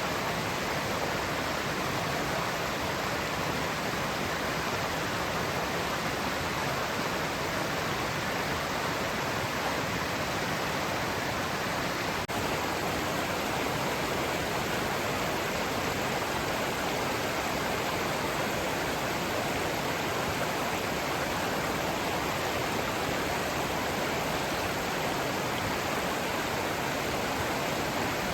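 Great Langdale Beck, a Lake District stream, running with a steady, even rush of water, broken by a brief dip about twelve seconds in.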